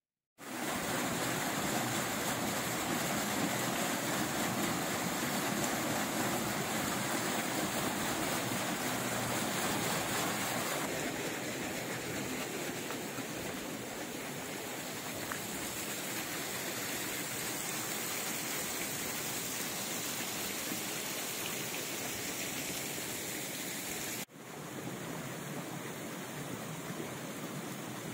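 Steady rush of water running through a wooden flume channel, dipping briefly near the end before carrying on.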